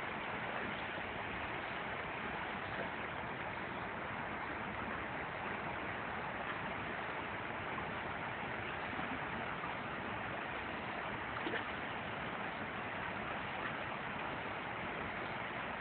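Shallow creek water running over stones: a steady rushing, with a brief slightly louder moment about eleven seconds in.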